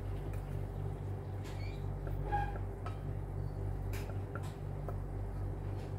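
A steady low hum, with a few faint clicks and scrapes as a wooden spatula scrapes honey syrup out of a small pot into a pan.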